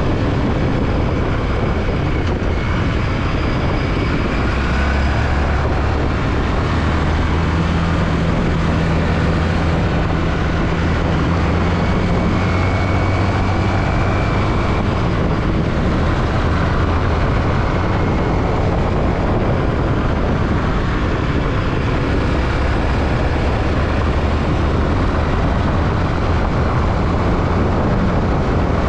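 Yamaha WR155R's single-cylinder engine running under way, its low drone shifting as the revs change, over a steady rush of wind and road noise.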